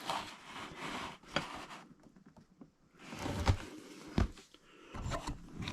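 Rustling and a few sharp knocks from a packaged metal spinning-target set being handled. There are two stretches of rustling with a quiet pause between them.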